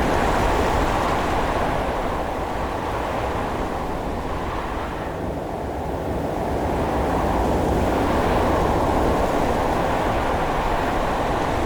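Wind storm sound effect: strong wind blowing as a continuous low rushing noise, easing a little about five seconds in, then building again into a stronger gust.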